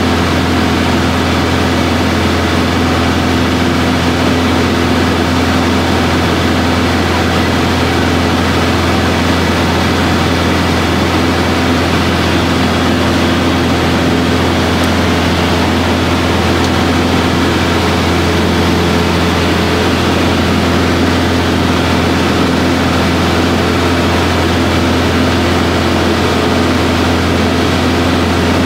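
Aero Boero AB-115 light aircraft's single piston engine and propeller running steadily at power while climbing out after take-off, heard inside the cockpit as a loud, unchanging low drone.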